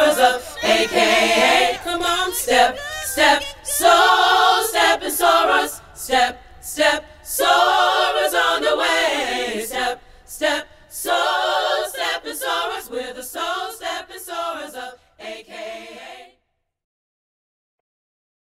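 A group of women sing-chanting a sorority step song a cappella, punctuated by sharp percussive hits in rhythm. It stops abruptly about 16 seconds in.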